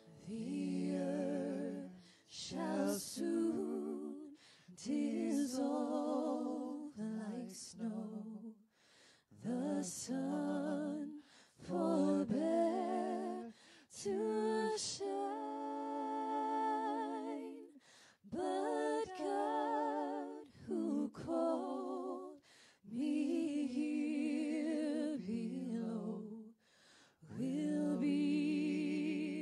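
Woman singing a slow worship song in phrases of one to three seconds, with short breaks between them; the voice is heard almost on its own, with little instrumental backing.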